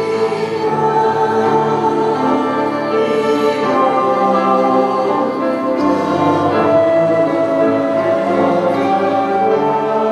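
A choir singing with long held notes.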